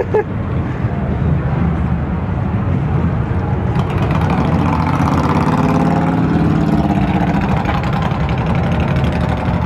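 Vehicle engines in traffic running with a steady rumble. About halfway through, one engine's pitch rises and falls as it speeds up or passes.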